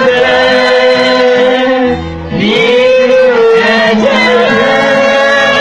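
Gospel singing with musical backing, the voices holding long, wavering notes; the sound drops briefly about two seconds in.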